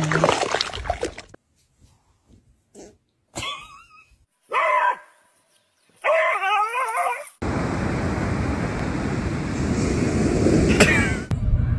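A dog whining and yipping in a few short high cries that waver in pitch, the longest about a second and a half. A steady rushing noise takes over for the last few seconds.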